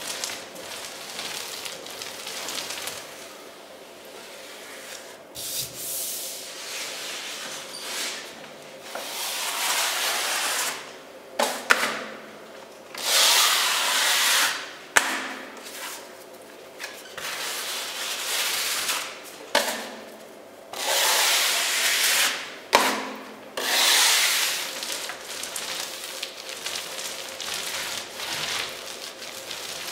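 Filler knife drawn over a plasterboard wall, spreading ready-mixed filler over paper joint tape in repeated scraping strokes of one to three seconds each. A few sharp clicks come between the strokes.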